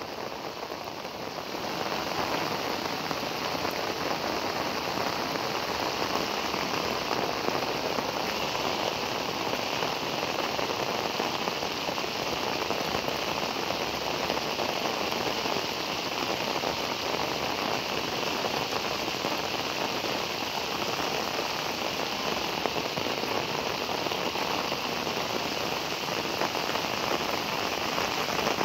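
Heavy rain falling steadily onto flooded paddy fields and their mud bunds, a dense, even hiss that grows a little louder about two seconds in.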